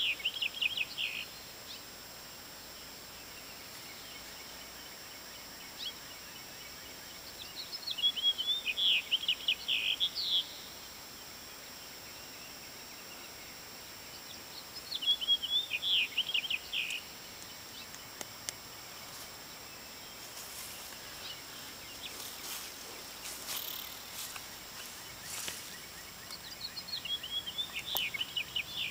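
A songbird singing the same short phrase four times, roughly every seven seconds: each phrase is a few quick high notes, then a rapid run of falling notes. In the second half there are scattered faint clicks and rustles.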